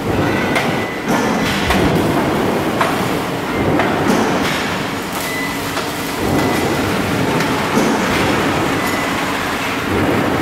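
Loud factory machinery din in a car-body welding shop: a steady mechanical noise with scattered short knocks throughout and a thin, steady high whine.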